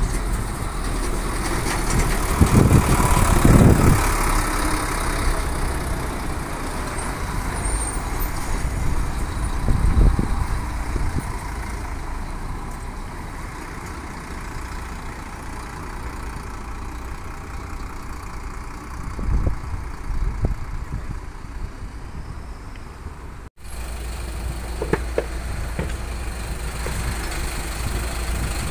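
Intercity coach engines: one coach drives past close by, loudest a few seconds in, then fades as it pulls away, with a brief thump about ten seconds in. After a sudden break, a second coach approaches with its engine running.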